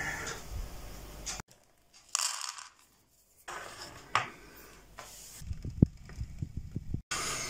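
Short household clips cut together with brief silent gaps. The loudest part, near the end, is a steel saucepan of eggs boiling on an electric stove: a run of irregular low bubbling knocks.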